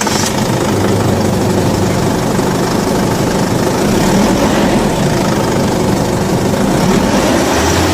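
Isuzu 4JJ1 3.0-litre turbo-diesel four-cylinder engine idling steadily, with the knocking clatter of a diesel.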